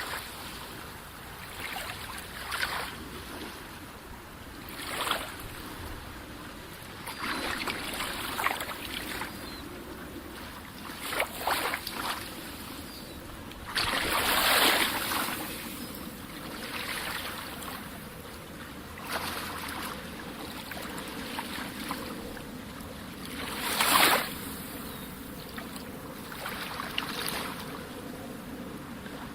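Sea waves breaking and washing up a shore, a steady wash with irregular swells every few seconds; the biggest crashes come about halfway through and near the end.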